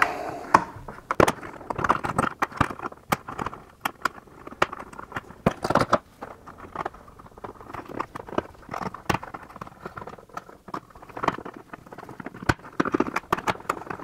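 Pliers working an alligator clip off a car's rear diffuser: irregular clicks, taps and scraping as the clip is squeezed and folded to free its teeth, with a few sharper knocks.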